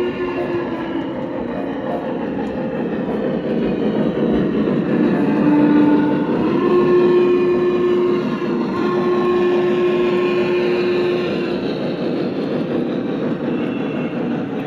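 Lionel Visionline Class A O-gauge model steam locomotive running on the track with its onboard sound system. Its steam whistle sounds briefly at the start, then again in long blasts from about five seconds in, starting a little lower in pitch and stepping up, with a short break, until about eleven seconds.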